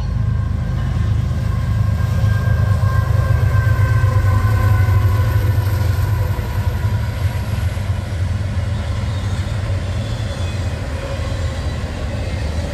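Norfolk Southern diesel freight locomotives passing close by, their engine rumble loudest about four seconds in. Then double-stack intermodal container cars roll past with a steady rumble of wheels on rails.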